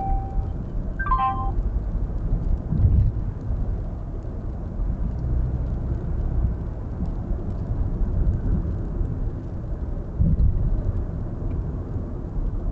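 Steady road and tyre noise with engine hum inside a car cruising at about 70 km/h on a highway, heard as a low rumble. A short electronic chime sounds about a second in, and two low thumps come about 3 and 10 seconds in.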